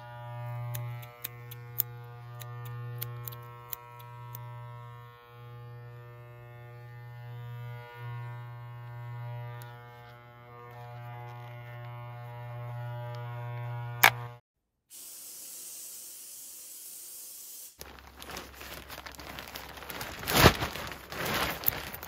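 Electric hair clipper buzzing steadily for about fourteen seconds, then switched off with a click. A spray can hisses steadily for about three seconds and cuts off. Then scissors snip, with one sharp, loud snip near the end.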